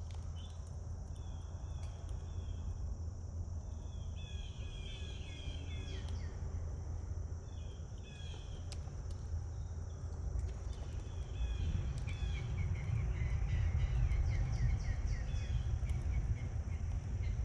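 Small birds chirping in short, repeated trilling phrases, over a steady high insect drone and a low rumble that grows louder in the second half.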